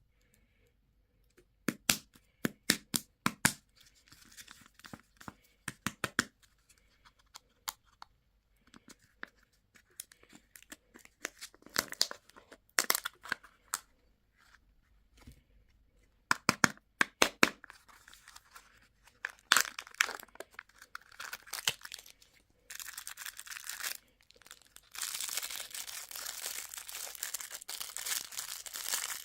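Plastic or foil candy wrapping being crinkled and torn open, first in bursts of sharp crackles, then about two-thirds of the way in as continuous dense crinkling.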